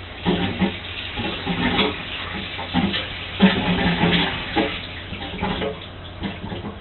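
Bathwater splashing and sloshing in a bathtub in a series of irregular splashes, with a steady low hum underneath.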